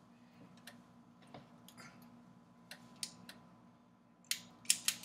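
Scattered sharp clicks and taps of metal kitchen utensils at a pizzelle iron, with a quick run of louder clicks near the end.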